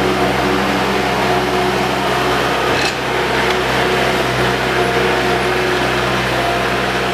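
Bobcat skid-steer loader engine running at a steady speed, an even droning hum with a slight dip about three seconds in.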